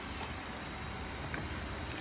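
Steady background hiss with a couple of faint ticks.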